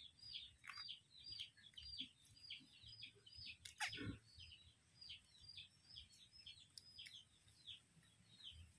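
Faint, steady chirping of birds: many short, high, downward chirps, several a second. There is a single sharp click about four seconds in.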